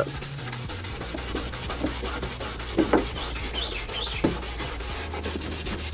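Maroon Scotch-Brite pad (7447, very fine) rubbed by hand over the painted Suzuki Hayabusa fairing in quick back-and-forth strokes, several a second. It is scuffing the shiny paint dull so new paint can grip.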